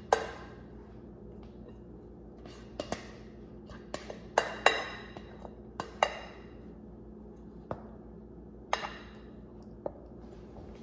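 A spatula scraping and tapping inside a glass mixing bowl as food is scraped out. There are a dozen or so scattered clinks, and the louder ones ring briefly.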